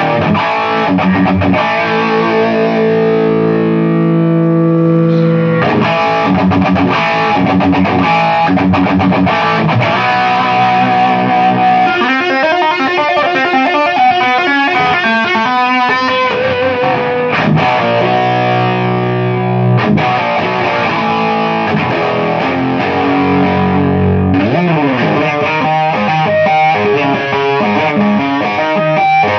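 Electric guitar played through an Egnater M4 preamp with VX module, a VHT 2150 power amp and a Rockett Animal distortion pedal, with a punchy, crunchy distorted tone. Ringing chords give way to quick single-note lines in the middle, with a slide in pitch near the end.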